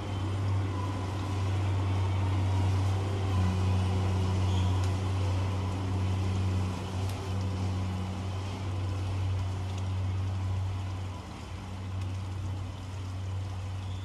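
An engine running steadily with a low, even hum that eases off a little about eleven seconds in.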